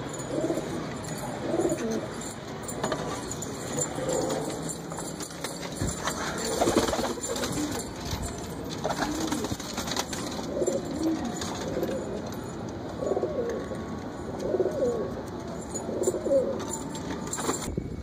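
Domestic pigeons cooing over and over, low warbling coos about one every second or so, with a few sharp clicks and knocks around the middle.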